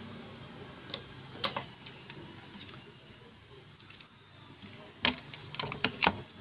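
Sharp plastic clicks and taps from handling an opened digital multimeter's case and board. There are two single clicks in the first second and a half, then a quick run of louder clicks about five to six seconds in.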